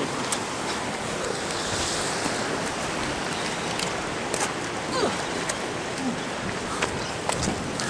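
Steady wash of ocean surf, with a few scattered short clicks and taps.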